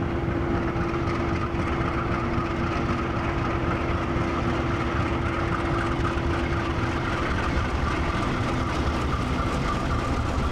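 KiwiRail DC-class diesel-electric locomotive running steadily as it ploughs through deep snow: a constant low rumble with a held whining tone over it.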